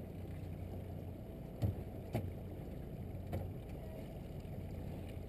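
Boat engine running at idle speed with a steady low hum, and two sharp knocks about a second and a half and two seconds in.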